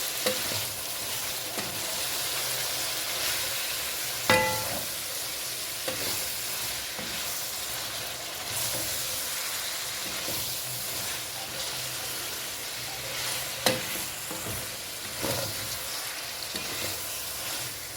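Chopped onions, carrots and bell peppers sizzling in a hot pan with dark soy sauce while being stirred, a steady frying hiss throughout. A utensil knocks against the pan now and then, once with a short metallic ring about four seconds in and again near fourteen seconds.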